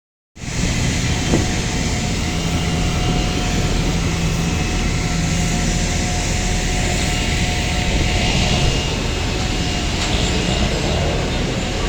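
Steady rumble and hum of a parked Boeing 777-200 airliner during boarding, with a faint steady whine above the noise; it starts abruptly just after the beginning.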